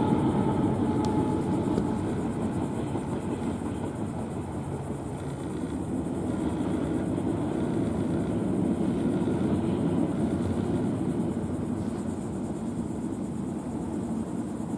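Freight train cars rolling across a bridge: a steady rumble of steel wheels on the rails. A faint high tone at the start fades out within the first two seconds.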